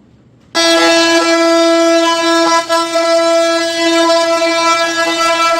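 Oscillating multi-tool switched on about half a second in and running with a steady, loud, high buzz as it cuts through a laminate floor plank, with brief dips in level as the blade meets the cut.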